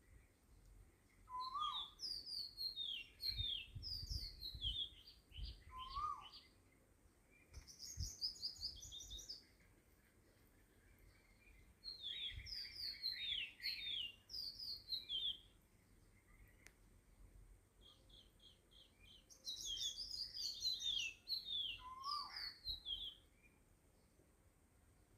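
Small birds chirping in four bouts of quick, high, falling notes, with a few lower rising whistles mixed in and quiet gaps between the bouts.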